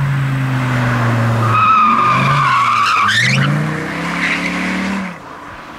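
Dodge Viper SRT-10 Roadster's 8.4-litre V10 pulling through a hard corner as the tyres squeal for about a second and a half, the squeal rising in pitch as it ends. The engine then climbs in revs before easing off near the end.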